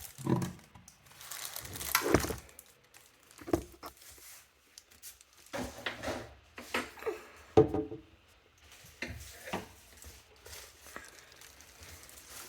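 Old bathroom sink pop-up drain being worked loose and taken out by hand: irregular scrapes, knocks and rattles of the drain parts, the sharpest knock about seven and a half seconds in.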